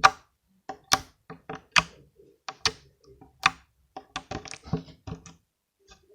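Slime being squeezed and pressed by hand, giving an irregular string of sharp clicks and pops, about two or three a second, that stop shortly before the end.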